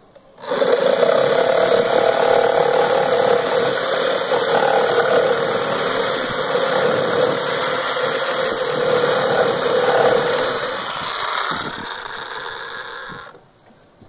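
Corded reciprocating saw cutting down through old weathered fence-board wood. It starts about half a second in, runs steadily, eases a little in the last few seconds and stops shortly before the end.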